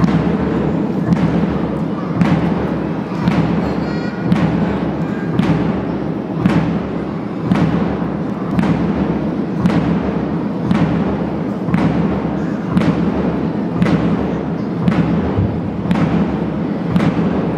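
A drum beating a steady marching beat, about two strokes a second, over a continuous dense rumble, keeping time for a flag march.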